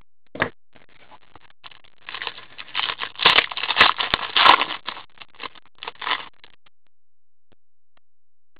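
Foil wrapper of a hockey trading card pack crinkling and tearing as gloved hands rip it open: a crackling rustle for a few seconds after a brief knock at the start, stopping about two-thirds of the way through.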